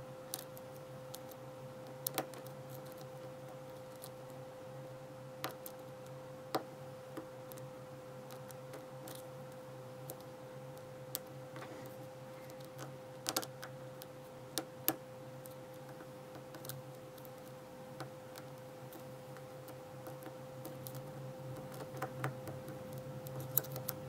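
Faint, irregular clicks and ticks of a hook pick and tension tool working the pin stack in the cylinder of an ASSA Ruko 2 padlock during single-pin picking. They come a few seconds apart, several close together around the middle and near the end, over a steady low hum.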